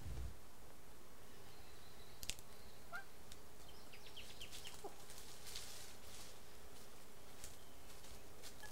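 Faint outdoor ambience with scattered bird chirps: a quick run of short high notes about four seconds in, a few single calls and clicks, over a faint steady hum.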